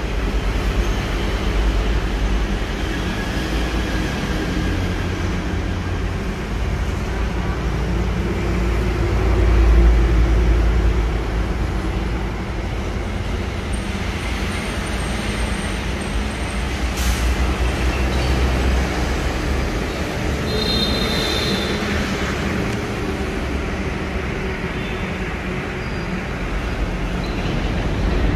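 Steady vehicle and road noise, a low rumble that swells about ten seconds in, with a few faint short squeaks and a click above it.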